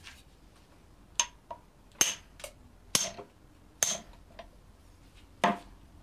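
Hammer blows on a 24 mm spanner fitted to the nut of a BMW M54 VANOS piston held in a vise: five sharp metallic strikes about a second apart, with lighter taps between them. The blows stand in for an impact wrench to shock the tight nut loose.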